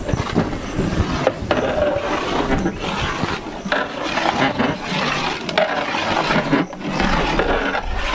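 A long ladle stirring a thin haleem mixture in a large metal cooking pot: repeated scraping and knocking against the pot's sides, with the liquid sloshing.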